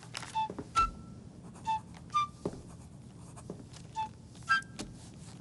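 Short, separate flute notes from a film score, spaced about half a second to a second apart, over faint scratching of a pen on paper.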